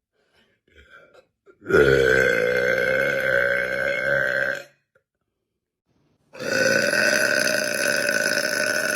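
A woman's long, drawn-out burps heard over a Discord voice call: one of about three seconds, then after a short silence a second that starts about six seconds in and is still going at the end.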